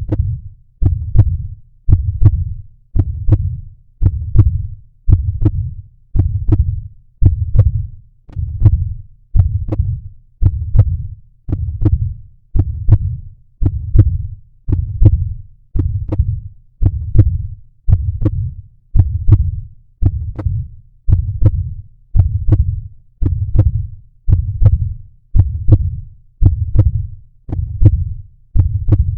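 Heartbeat audio: steady low thumping beats, about one a second, at an even resting pace.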